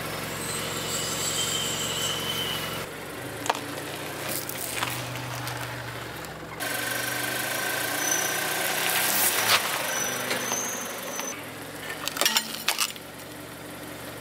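A car's engine idling as its tyre creeps slowly onto small objects, in several short clips. A steady high squeal runs for a few seconds in the middle, and a quick run of sharp cracks comes near the end as something is crushed under the tyre.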